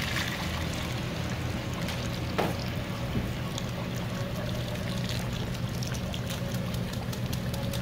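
Blended garlic water poured from a blender jar through a wire-mesh strainer into a pot of pork carnitas, a steady stream splashing into the liquid, over a steady low hum.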